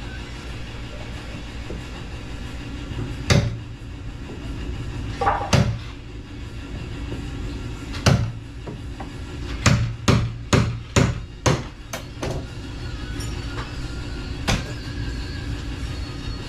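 Sharp knocks from work on a garage door installation: about ten in all, with a quick run of six in the middle, over a steady low hum.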